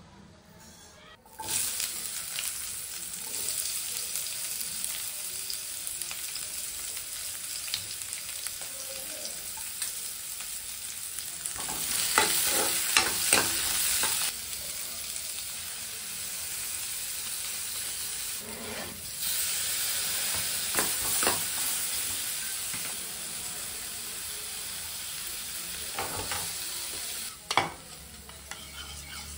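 Oil sizzling in a nonstick frying pan as spices and chopped onion fry, starting suddenly about a second and a half in. A ladle scrapes and taps against the pan in several louder spells while the food is stirred.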